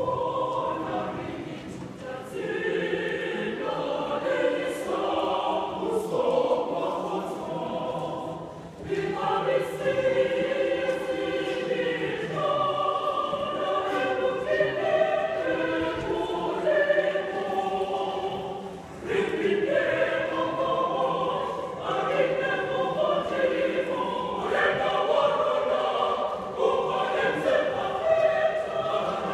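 Mixed church choir singing together in several parts, holding long chords in phrases that break off briefly about 9 and 19 seconds in.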